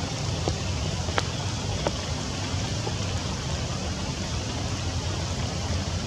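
Steady rain falling on forest foliage, a constant hiss with a few sharper single drops landing close by in the first half.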